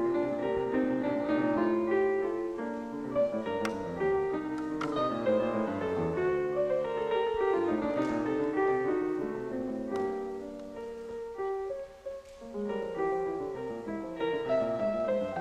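Piano music, a busy run of notes moving up and down, with a few sharp clicks among them; the playing thins out briefly near the end.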